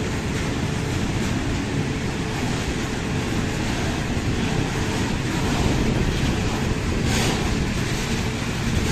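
Freight train of open coal wagons rolling past: a steady rumble of wheels on rail, with a brief sharper clatter about seven seconds in.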